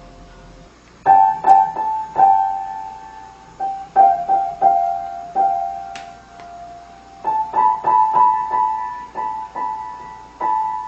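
Piano notes struck one or two at a time in an uneven rhythm, starting about a second in, each ringing and fading.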